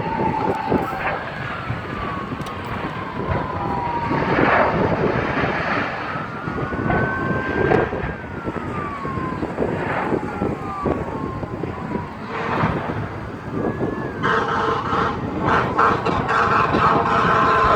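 Emergency vehicle sirens wailing, their pitch sweeping up and down again and again over a steady rumbling noise, with a few short bangs among them. About fourteen seconds in, a steady horn of several tones starts and holds.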